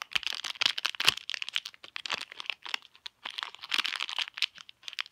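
Small crinkly blind bag being torn open and crumpled by hand, with irregular crackling and tearing sounds.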